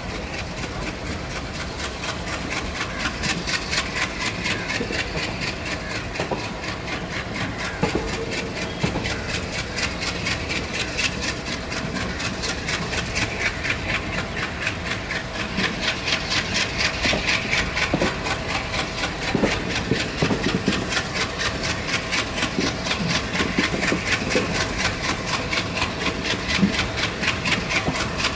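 WDM3A ALCO diesel locomotive chugging hard as it pulls the train away, its exhaust beating in a fast, steady rhythm. A few knocks come through over it.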